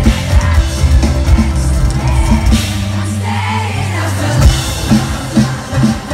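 Live pop-rock band playing through a concert PA: a steady drum and bass beat with electric guitar, and a lead vocalist singing into a microphone.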